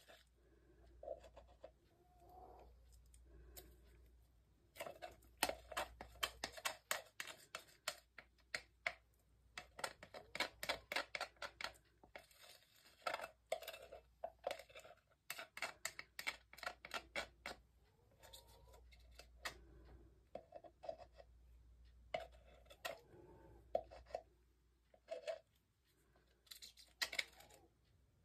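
A thin stick scraping the inside of a clear plastic mixing cup to get the last of the pour out. It comes as runs of quick scratching strokes, thickest in the middle of the stretch, with a short flurry near the end.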